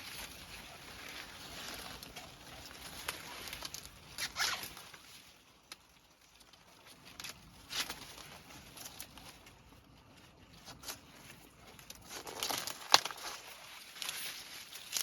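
Irregular rustling and crackling with scattered short, sharp snaps, quieter in the middle and busiest near the end, where one snap stands out loudest.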